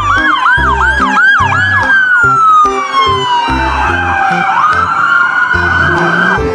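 Police siren sounding with two patterns overlapping: a long wail that slides slowly down in pitch, and a fast swooping yelp that repeats about three times a second. Background music with a steady bass beat runs underneath.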